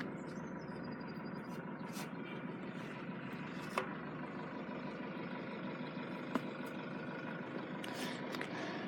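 Steady running of road vehicles idling while held at a level crossing, with a few faint clicks.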